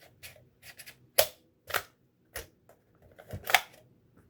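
Sharp plastic clicks and snaps, about seven of them at irregular intervals, from the toy drone's remote controller being handled as its built-in phone holder is pulled out.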